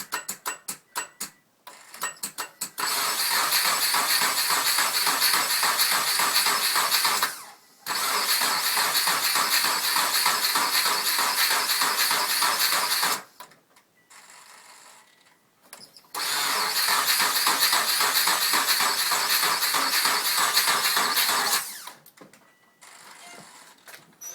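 Subaru Forester engine cranking on the starter but not firing, in three attempts of about five seconds each with short pauses between, after a run of quick clicks at the start. The no-start is tagged with fault code P0336, a crankshaft position sensor fault.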